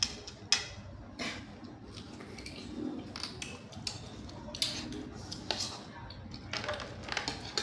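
Blood cockle shells clicking and cracking as they are pried open by hand, a run of sharp clicks about a second or less apart, the sharpest about half a second in.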